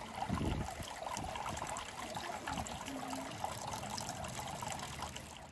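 Water trickling from a bamboo spout into a stone shrine purification basin, a steady splashing dribble, with a short low rumble about half a second in.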